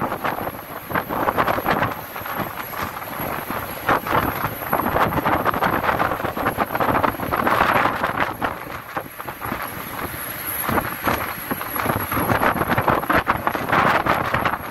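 Vehicle travelling along a road: engine and road noise mixed with wind buffeting the phone's microphone, uneven in loudness throughout.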